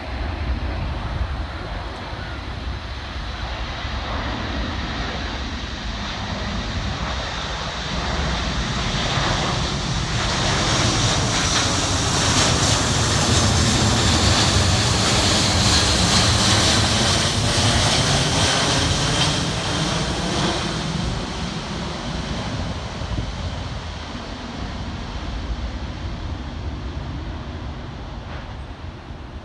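Boeing C-17A Globemaster III's four Pratt & Whitney F117 turbofans on landing approach, passing low overhead. The jet noise builds to its loudest with a high whine about halfway through, then fades as the aircraft moves away.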